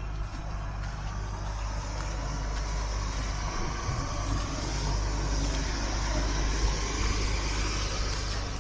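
A road vehicle running close by: a steady low engine rumble with road noise that slowly grows louder.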